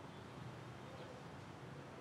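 Faint, quiet room tone: an even hiss with a steady low hum.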